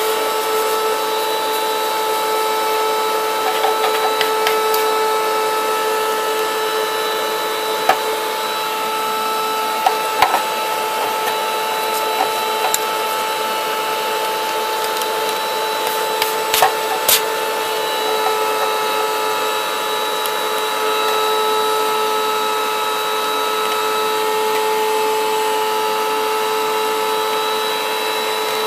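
Vacuum cleaner running with a steady whine as its nozzle sucks up dust that a paintbrush is scrubbing off the back of a CRT television; a few sharp clicks and knocks from the nozzle and brush hitting the set, a cluster of them about halfway through.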